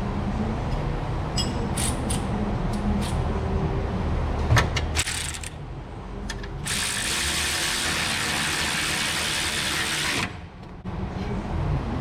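Hand-tool work on metal: scattered clicks of a ratchet and parts, one sharp knock about four and a half seconds in, then a steady hiss for about three and a half seconds that cuts off suddenly, over a low hum.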